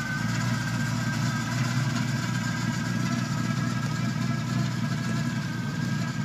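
1957 Chevrolet Bel Air's 355 small-block V8, fitted with a Thumper cam and dual exhaust, idling steadily.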